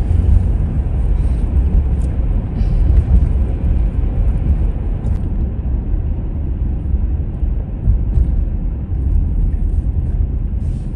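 Steady low rumble of a car driving on a wet road, heard from inside the cabin: engine and tyre noise, with a few faint ticks.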